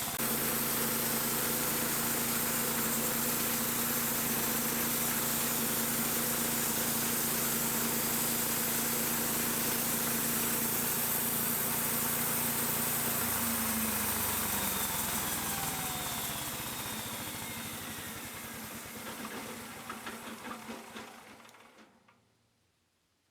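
Sawmill engine running steadily while the band blade saws through shagbark hickory. About 14 seconds in the engine note drops, and the sound dies away over several seconds to near silence.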